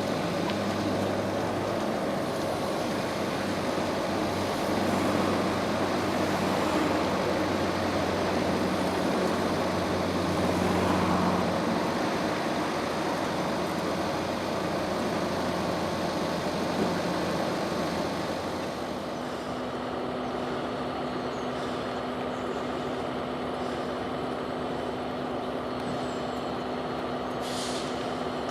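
Train running, a steady mechanical hum and rumble. About two-thirds of the way in it drops to a quieter, steadier hum, and there is a short hiss near the end.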